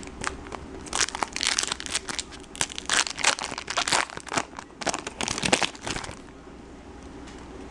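Foil wrapper of a 2012 Bowman Chrome baseball card pack crinkling as it is torn open and handled. There is a dense run of crackles for about five seconds, stopping about six seconds in.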